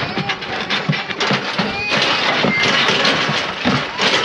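Cattle handling at a steel squeeze chute and headgate: many metal knocks and clanks as a cow is let out, mixed with cattle calls and hoof noise.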